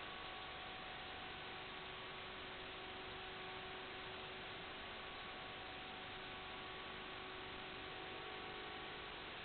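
Steady electronic static hiss with a few faint, unchanging hum tones running through it.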